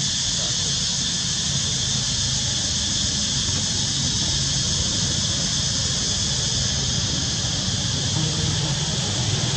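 Steady outdoor ambience: a high, even insect drone over a low hum, with no monkey calls standing out.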